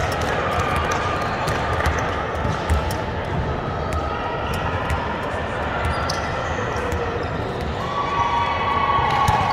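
Basketballs bouncing on a court during play, repeated thuds throughout, with voices in the background.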